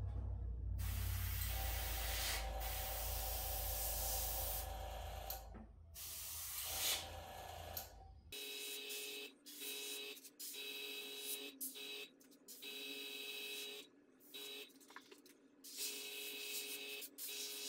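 Airbrush spraying paint with a hiss of air, over a low hum for about the first eight seconds. After that the hum drops away and the spraying goes in short stop-start bursts, each carrying a thin steady whine.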